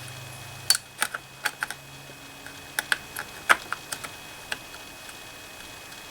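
Sharp, irregular clicks and taps from a SODIMM RAM module and the laptop's plastic and metal parts being handled as the module is pushed into its memory slot. There are about a dozen clicks, most of them in the first four and a half seconds.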